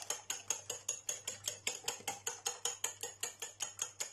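A fork beating raw egg in a ceramic plate: quick, even clicking strokes of the tines on the plate, about eight a second.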